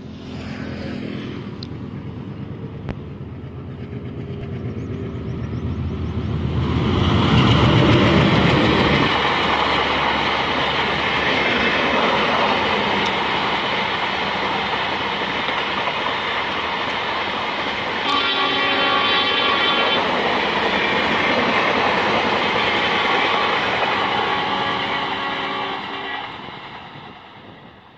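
An Indian Railways passenger train passes: an ALCO WDM3D diesel locomotive drones as it approaches and peaks as it goes by, then the LHB coaches rumble past on the rails. A horn sounds for about two seconds midway through the coaches, and the rumble fades near the end as the train draws away.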